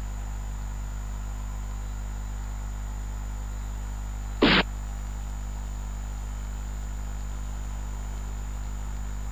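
Steady electrical hum with one short clack about four and a half seconds in: the move sound of a xiangqi (Chinese chess) program as a piece is placed on the board.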